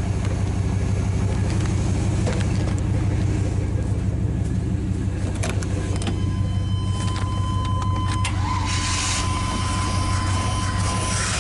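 Chevy Tahoe's V8 running steadily at idle, now that its spark plug wires have been moved one notch on the distributor to correct the timing. A steady high tone sounds for several seconds from about the middle on, with a few clicks.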